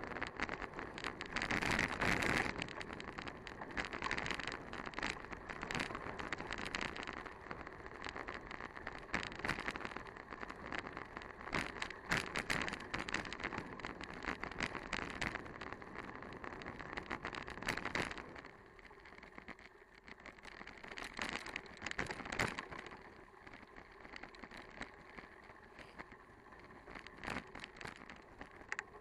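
Bicycle being ridden: tyres rolling with a steady crackle and rattle of many small clicks, growing quieter about two-thirds of the way through.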